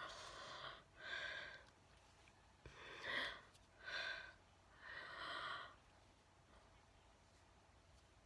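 A person's heavy, audible breathing: five breaths or sighs in a row, each under a second, in the first six seconds.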